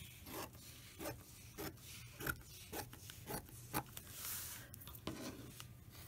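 Fabric scissors snipping through fabric, a run of short snips about every half second, trimming the edge of a pieced quilt block.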